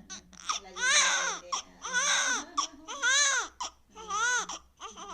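A cartoon character crying loudly in a string of high, wailing sobs, about one a second, each rising and then falling in pitch, with short catches of breath between them.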